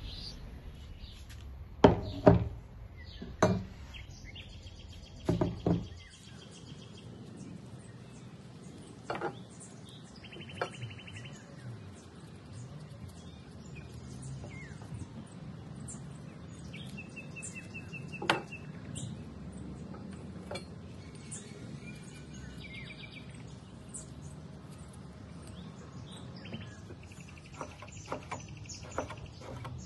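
A few loud knocks in the first six seconds, then a knife slicing plums on a cutting board, the blade tapping the board now and then, while small birds chirp and trill in short phrases.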